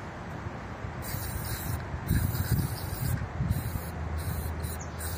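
Aerosol can of 40% DEET insect repellent spraying onto a plastic car headlight in a series of short hissing bursts, starting about a second in.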